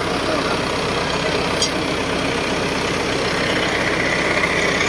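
Farm tractor's diesel engine idling steadily.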